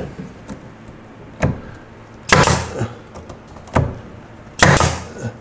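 Pneumatic 18-gauge brad nailer firing 1¼-inch brad nails into a cabinet face frame: four sharp shots about a second apart, the second and fourth longer and noisier than the others.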